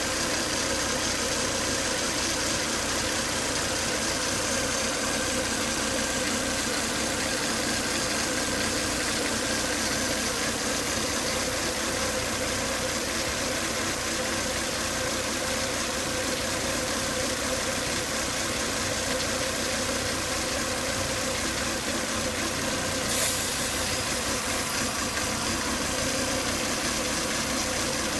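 Volvo S80 2.5T's turbocharged five-cylinder engine idling steadily with a whine over it. The owner ties this noise to high crankcase vacuum, with air sucked hard in at the oil filler cap, and says it sounds as if something is broken inside. One short click comes near the end.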